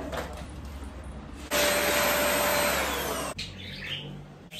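A small electric appliance motor is switched on and runs with a loud rushing noise and a steady whine for about two seconds. It is then switched off, and its whine drops in pitch as it winds down.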